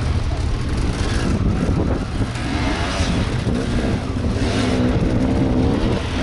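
Enduro motorcycle engines revving up and down as riders work up a rocky slope, over a steady low rumble.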